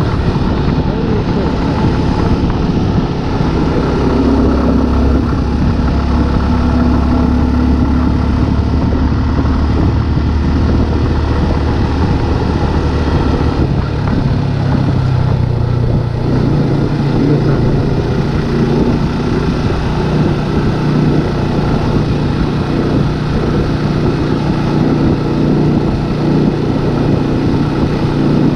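Motorcycle engine running steadily, its pitch shifting a couple of times, about midway through and again later.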